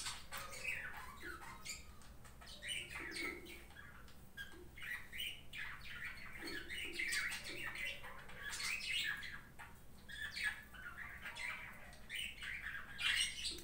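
Piston ring being fitted into its groove on a piston by hand: faint metal clicks and scrapes, with repeated short squeaky chirps throughout.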